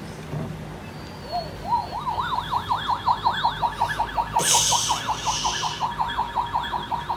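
Electronic sound effect from a Ryan's World alien spaceship toy's little speaker: a warbling, siren-like tone that sweeps up and down several times a second, starting about a second and a half in. A short hiss cuts in partway through.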